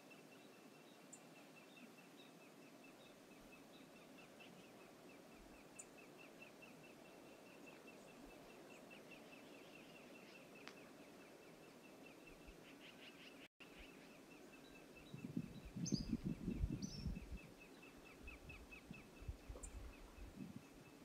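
Faint outdoor ambience with a rapid, even high chirping that runs on throughout. A few higher short bird-like calls come about fifteen seconds in, together with a short, louder burst of low rough noise and smaller bursts a few seconds later.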